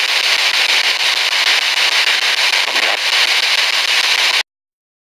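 Spirit box sweeping through radio stations: a steady, loud hiss of radio static that cuts off suddenly about four and a half seconds in.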